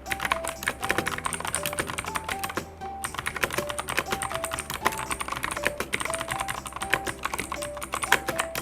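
Fast typing on a full-size mechanical keyboard with clicky Kevlar Tech blue switches: a quick run of sharp key clicks with a brief pause about three seconds in. A simple background music melody plays underneath.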